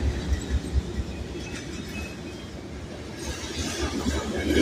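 Freight train passing at close range: the trailing diesel locomotive's low rumble eases after the first second as autorack and covered hopper cars roll by, wheels clattering on the rails. Faint high wheel squeal comes in about a second and a half in and again near the end, when the rolling noise grows louder.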